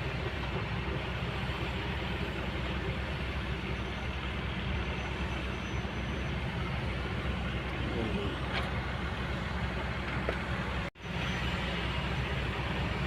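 Kobelco excavator's diesel engine running steadily, a deep continuous drone. The sound drops out for an instant about eleven seconds in.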